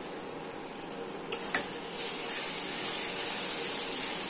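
Tomato sauce sizzling in a steel kadai. About a second in, a spatula clicks twice against the pan, and from about two seconds on the sauce is stirred with a louder sizzle.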